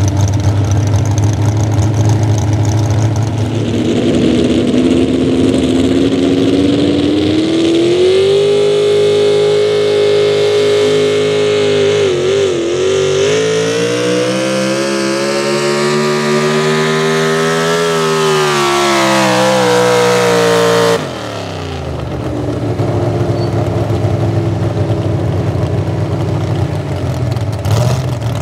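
Pro stock 4x4 pulling truck's engine under full throttle during a pull. It revs up a few seconds in and runs hard with the pitch climbing, dips briefly, climbs again, then falls off. It cuts off suddenly about three quarters of the way in, and a lower engine idle follows.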